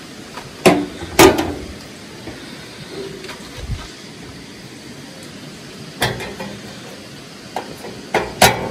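Metal lid and side wind panel of a Coleman two-burner camping stove clanking as they are opened and set up. Two loud clanks come about a second in, another around six seconds, and a quick pair near the end.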